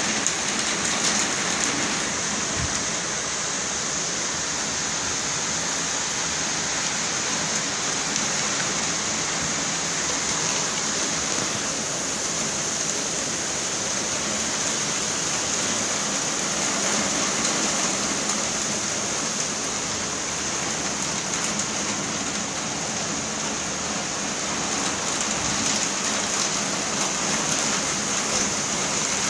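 Torrential rain pouring down steadily, a dense, even hiss.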